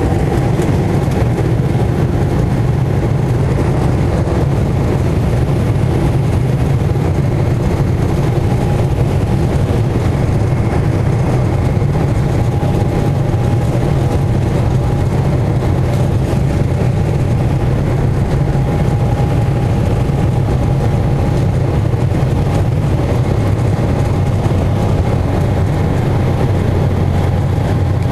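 Embraer 190's General Electric CF34-10E turbofans at takeoff thrust, heard from inside the cabin along with the rumble of the wheels on the runway: a steady, loud, low roar with a thin steady whine above it.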